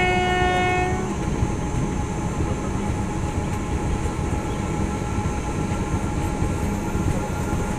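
Passenger train running along the track with a steady rumble. A horn blows a single steady note for about the first second.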